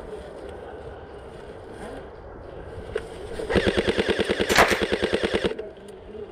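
Airsoft electric rifle firing one full-auto burst of about two seconds, a fast even rattle of roughly ten shots a second, starting about halfway in and cutting off suddenly.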